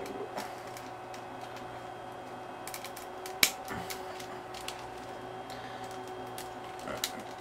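Plastic clicks and clacks from a Beast Wars Retrax Transformers toy being handled as its hands are pushed back into place, with one sharper click about three and a half seconds in.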